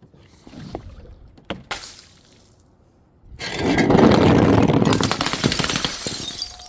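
Two sharp knocks, then a loud splash and gush of liquid with crackling, lasting about three seconds before dying away.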